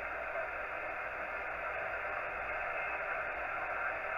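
Yaesu FT-847 HF transceiver receiving on the 40-metre band at 7.272 MHz, putting out a steady hiss of band noise and static through its narrow voice filter. This is the open channel in a gap between transmissions, with no station talking.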